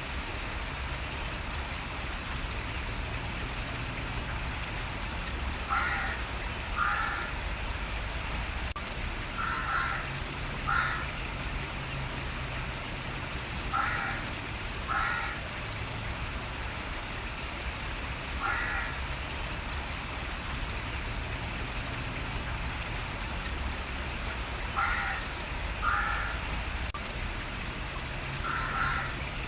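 Steady running water with a bird calling over it: short calls, mostly in pairs about a second apart, repeating every few seconds.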